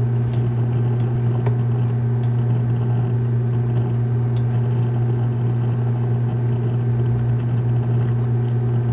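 Steady low electrical hum picked up by the desktop microphone, unchanging throughout, with a few faint clicks in the first half.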